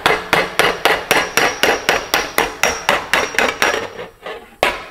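Hammer blows on tack-welded sheet steel backed by a dolly, quick and even at about four a second, each with a short metallic ring, with a brief pause near the end before they start again: the sheet is being straightened after tack welding.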